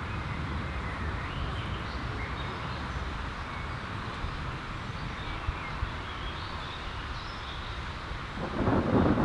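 Outdoor ambience: a steady low rumble with faint high chirps of birds, swelling louder near the end.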